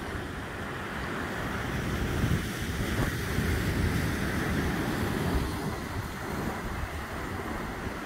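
Ocean waves washing onto the shore, a steady rushing noise with wind buffeting the microphone. The surf swells louder from about two seconds in and eases off again after about five seconds.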